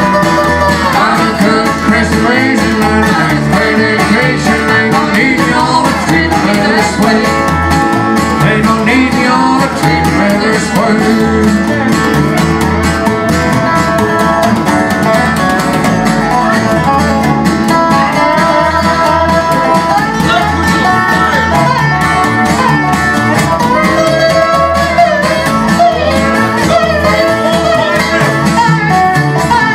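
Live country instrumental break: a resonator guitar plays a lead with sliding notes over a strummed acoustic guitar and a plucked upright bass keeping a steady beat.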